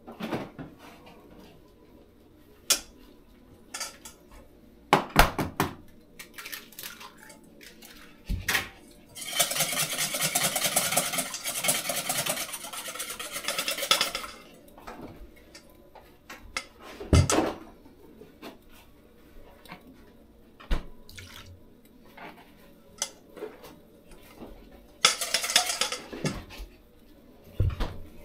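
Metal cooking utensils and pans clinking and knocking in scattered, irregular strikes. A dense rasping noise lasts about five seconds, starting about nine seconds in, and a shorter one comes near the end.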